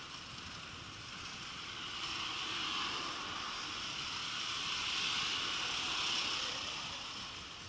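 Street noise heard from a moving bicycle: a steady hiss of wind and tyres with passing traffic, swelling about two to three seconds in and again around five to six seconds in.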